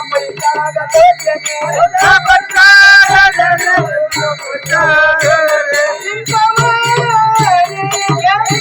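An elderly woman singing a folk song in a high, held voice, over a steady drum beat and jingling percussion.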